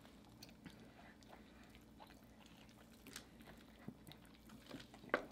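Faint eating sounds: quiet chewing and mouth sounds with scattered soft clicks of a fork in a ceramic ramekin, and a sharper click near the end.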